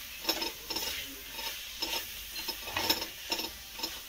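Wooden spatula stirring and scraping khoa and melting jaggery around a metal kadhai, about two strokes a second, over a steady sizzle from the hot pan.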